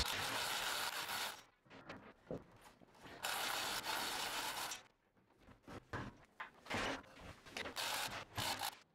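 An angle grinder cutting steel stops about a second and a half in. After it, a manual chain hoist clicks and its chain rattles in short, uneven spells as a steel hull plate is hoisted into place.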